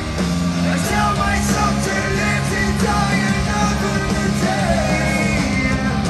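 Rock band playing live, heard from the crowd: electric guitars and bass holding low sustained notes, drums with cymbal splashes, and a sung lead vocal over the top.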